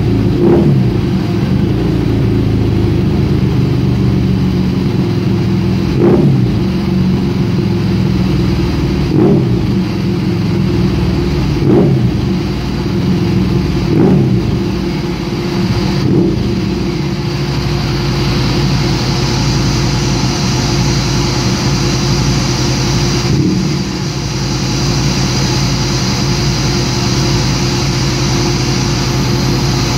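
Harley-Davidson V-Rod Night Rod Special's liquid-cooled Revolution V-twin running on a chassis dyno through TAB slip-on mufflers after a stage 1 tune. It is blipped sharply about seven times over the first twenty-odd seconds, then held at a steady engine speed.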